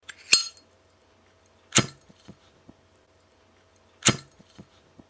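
Three sharp cracking impacts, about two seconds apart, each followed by a few smaller clicks.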